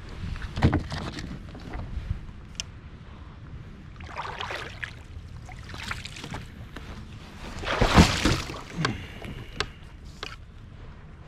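Water splashing and sloshing around a kayak, with irregular short knocks; the loudest splashes come about a second in and again near eight seconds.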